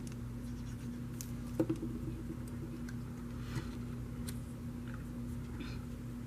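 A few scattered small clicks and light taps from paper pieces and adhesive being handled on a craft table, the sharpest about a second and a half in, over a steady low electrical hum.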